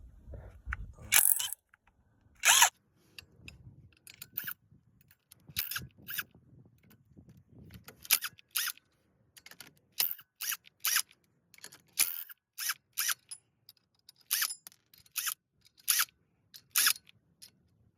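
Irregular sharp metal clicks and clinks of hand tools and loosened bolts being handled, with two louder knocks in the first few seconds.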